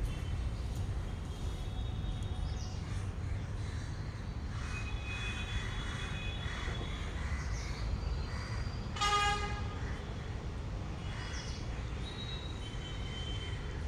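Train running with a steady low rumble, and a short horn toot about nine seconds in.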